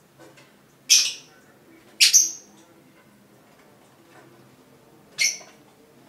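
Lovebird giving short, shrill calls: one about a second in, a quick double call at two seconds, and another just after five seconds.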